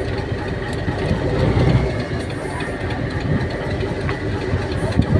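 Fishing boat's diesel engine idling with a steady low rumble, with one sharp click about four seconds in.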